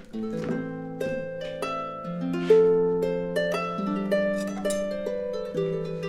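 Background music: a gentle melody of plucked string notes, each struck sharply and left ringing over the next.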